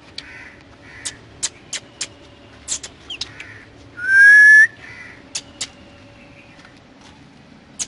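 Ring-necked parakeet giving short, sharp chirps, with one loud rising whistle about four seconds in.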